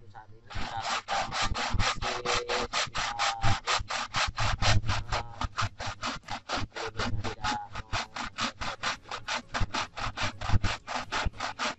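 Hand saw cutting through a wooden log hive, with steady back-and-forth strokes at about four a second. The strokes start about half a second in.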